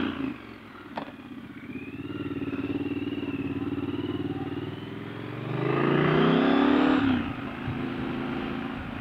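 Triumph Scrambler 1200's parallel-twin engine running at low road speed, then rising in pitch and getting louder under acceleration about five seconds in, before dropping sharply about seven seconds in as the throttle comes off.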